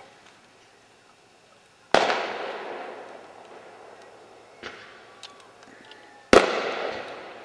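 Fireworks bursting: two loud booms about two and six seconds in, each echoing and fading away over a second or more. A smaller crack and a few faint pops fall in between.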